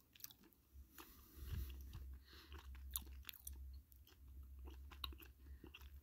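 Faint chewing of a soft, chewy Starburst fruit candy, heard as irregular small mouth clicks.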